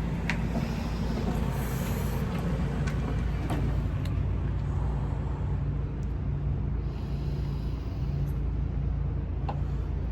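Steady low engine hum with wind rumbling on the microphone, and a few faint clicks.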